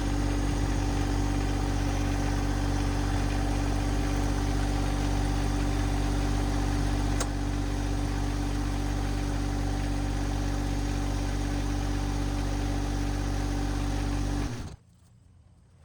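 John Deere 2025R compact tractor's three-cylinder diesel engine running steadily at low speed. It stops abruptly about a second before the end.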